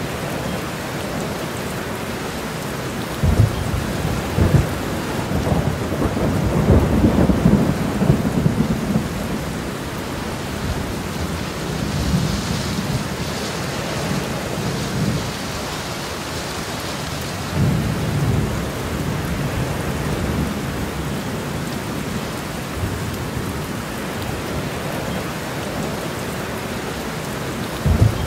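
Steady heavy rain with thunder rumbling low several times; the longest, loudest roll comes a few seconds in with a couple of sharper jolts, and shorter rolls follow later.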